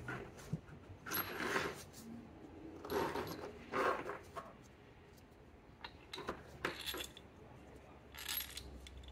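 Gloved hands handling an ignition coil pack seated on the engine's valve cover: a few short scrapes and light clinks spread over several seconds.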